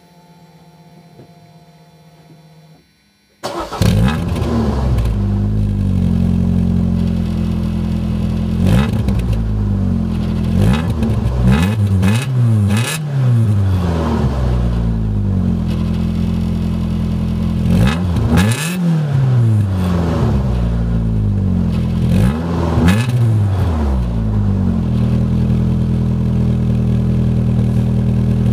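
MG ZR 160's 1.8-litre K-series VVC four-cylinder engine on its standard exhaust: a faint steady hum, then the engine catches about three and a half seconds in. It idles and is blipped several times, the pitch rising and falling with each rev, then settles back to a steady idle.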